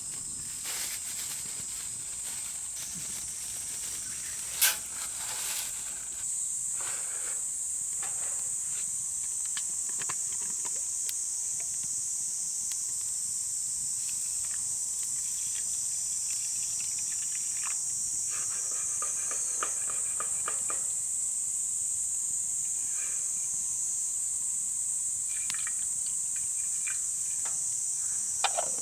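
A steady high-pitched insect chorus, with scattered light clicks and knocks and one sharp click about five seconds in.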